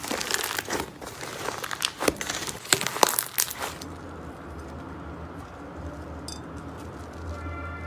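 Slime being squeezed and poked by hand, giving a quick run of crackling clicks and pops. About four seconds in it gives way to a steady low hum.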